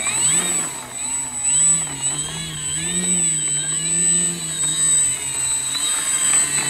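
XFly Tasman RC plane's electric brushless motor (3536 900 KV) and 11x7 two-blade propeller taxiing it over grass, the whine rising and falling in pitch as the throttle is worked. A steady high-pitched tone runs underneath.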